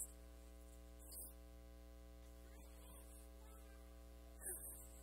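Near silence with a steady electrical mains hum, broken by a few faint, brief sounds.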